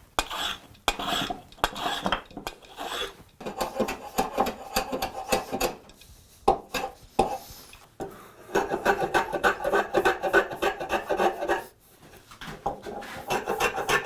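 Steel threaded spindles of a hand screw clamp being turned through the clamp jaws: a rhythmic rasping scrape of metal threads, in several runs with short pauses between them.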